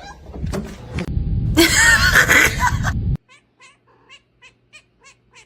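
A cat's yowling calls over loud rustling noise. These cut off suddenly about three seconds in, followed by a run of short, high, evenly spaced calls, about four a second.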